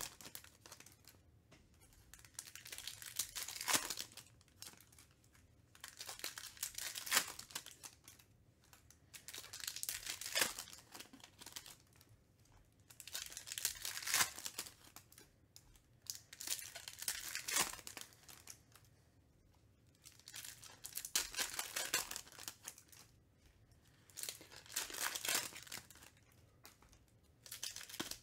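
Topps Chrome trading-card pack wrappers being torn open and crinkled by hand, in short bursts every few seconds with quieter gaps between.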